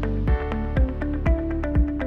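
Electronic background music with a steady beat, a kick drum about twice a second under sustained synth notes.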